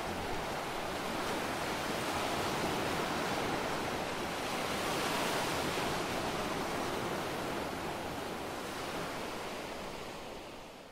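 A steady rushing noise like surf, swelling slightly about five seconds in and fading out near the end.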